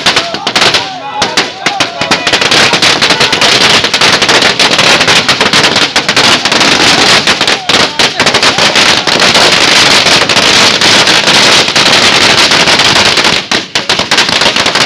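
A long string of firecrackers laid along the road going off in a rapid, unbroken run of loud cracks, many per second. Crowd voices shouting can be heard under the first cracks.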